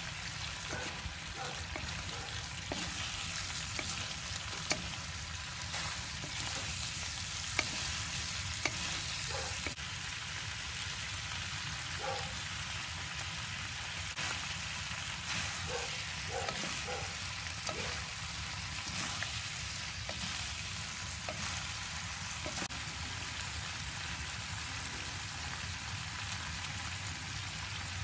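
Pork and bamboo shoots sizzling steadily as they stir-fry in a nonstick wok, with scattered light clicks and scrapes of a wooden spatula and chopsticks turning the food against the pan.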